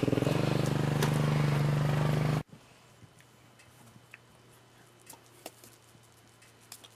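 Small gasoline engine running steadily with a fast even pulsing, which cuts off abruptly about two and a half seconds in. After that only a faint low hum and a few small clicks remain.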